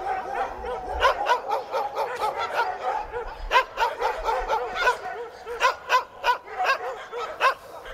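A group of dogs barking together: short calls overlapping several times a second, with louder sharp barks now and then.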